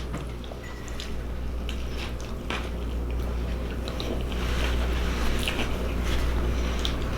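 A person chewing and biting food close to the microphone: wet smacks and small clicks of mouth eating, over a steady low hum.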